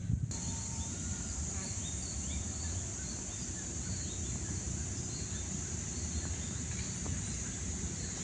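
Insects buzzing steadily in a high pitch, with short faint chirps scattered through, over a low steady background noise. The sound cuts in at a shot change just after the start.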